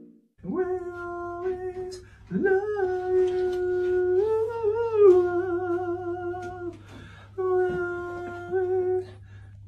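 A person humming a slow melody in three long held phrases, the notes wavering slightly, over a steady low drone.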